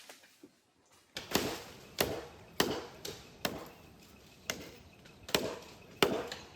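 Repeated chopping strikes of a hand blade cutting into silver oak wood, starting about a second in, about seven hard blows at an uneven pace of roughly one every 0.7 s, with lighter strikes between.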